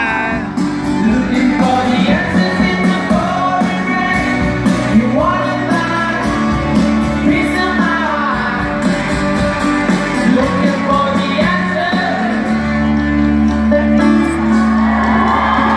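A live rock band playing through a concert PA: a sung lead vocal over electric guitars, bass and drums.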